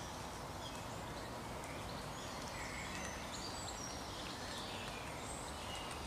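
Woodland ambience: a steady background hiss with many short, high chirps and calls from songbirds scattered throughout.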